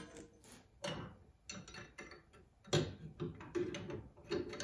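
Metal mill parts knocking and clicking as they are handled and fitted together on the mini mill's Z-axis column, in a run of irregular knocks with the loudest a little under three seconds in.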